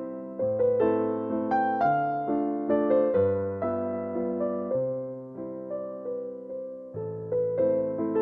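Background piano music: a gentle melody of struck notes over a slow-changing bass line.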